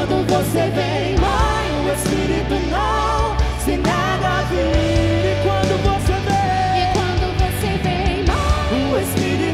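Live band playing a Catholic worship song: a sung melody over bass and drums with cymbals.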